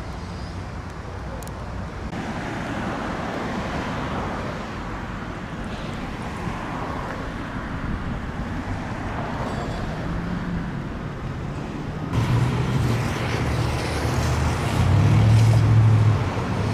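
Road traffic passing, a steady rush of cars, with a vehicle's low engine hum growing louder in the last few seconds.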